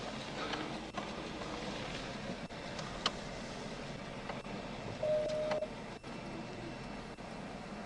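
Steady vehicle noise, with a sharp click about three seconds in and a short single-tone beep just after five seconds.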